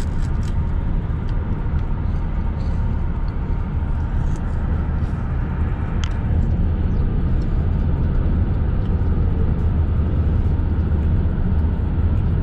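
Steady low rumble of a car travelling at highway speed, heard from inside the car: road and engine noise. It grows slightly louder about halfway through.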